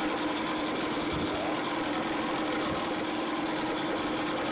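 Fishing boat's engine running steadily: an even drone with a rapid mechanical chatter.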